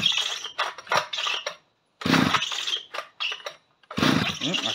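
Stihl 010 AV two-stroke chainsaw being pull-started three times, each pull cranking the engine for about a second and a half with short quiet gaps between; it does not settle into running. The engine has been primed with fuel poured into the carburettor intake.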